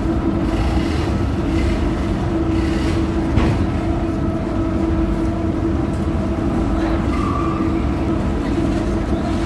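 Heavy diesel machinery running steadily: a low rumble with a constant hum, with faint shouted voices now and then and a single knock about three and a half seconds in.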